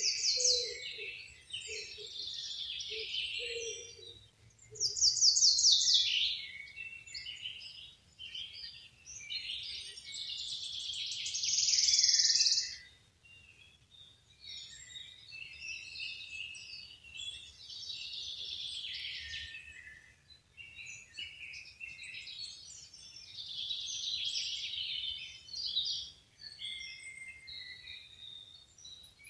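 Several wild songbirds singing, their phrases overlapping and following one another without a break. The loudest is a fast run of notes falling in pitch about five seconds in.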